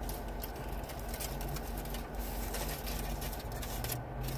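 Chewing and the crinkle of a burrito wrapper as a chicken burrito is eaten, a scatter of short irregular crackles over a steady low hum inside the car.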